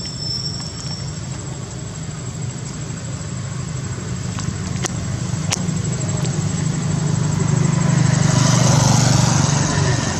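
A motor vehicle's engine running steadily, growing louder to a peak about eight to nine seconds in and then easing off. Two sharp clicks sound near the middle.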